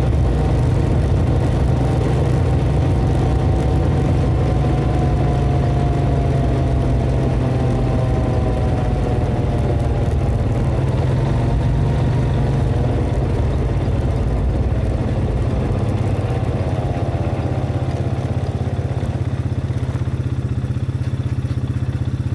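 ATV engine running steadily while riding along, with a thin whine that slowly falls in pitch over the first dozen seconds.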